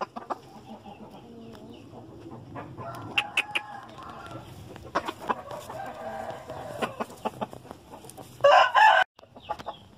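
Young gamecocks in their pens clucking softly, with scattered light clicks and scratches. Near the end a rooster crows loudly, and the crow cuts off short.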